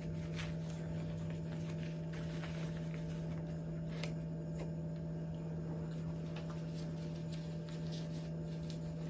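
A steady low hum, with a few faint light ticks and rustles.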